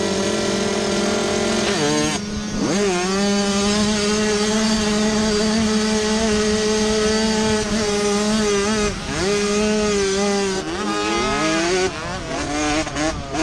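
Youth motocross bike engine held at steady high revs on the start gate. About two seconds in it dips and climbs sharply as the bike launches, then runs flat out. In the last few seconds the revs fall and rise several times with the gear changes and throttle.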